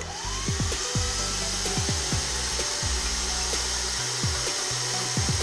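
Small battery-powered electric motor spinning up to drive a scooter's belt variator transmission and rear wheel: a whine that rises in pitch over the first couple of seconds as it gains speed, then a steady whirr.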